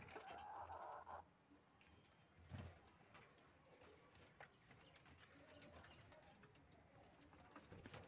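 Budgerigars chirping faintly in their cage, with a brief rustle at the start and a soft knock about two and a half seconds in.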